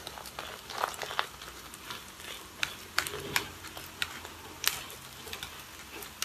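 Wooden spatula tapping and scraping as it presses sticky rice into a square on a mung-bean crepe in a wok, with irregular sharp clicks over a soft, steady sizzle from the low heat.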